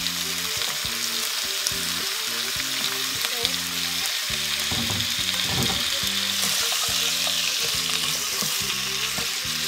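Pak choy sizzling in a hot nonstick wok with a splash of water added to cook its thick stems, while a spatula stirs and scrapes it around the pan. A steady hiss that grows a little stronger past the middle.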